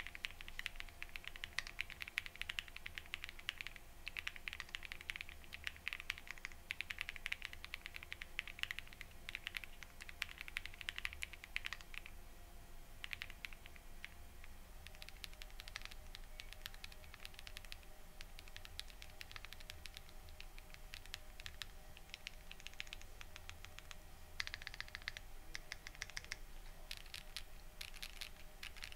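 Typing on an M.ONE Ginkgo65 Pro mechanical keyboard with an FR4 plate and hand-lubed switches: quick runs of soft keystroke clicks, with a brief lull a little under halfway through.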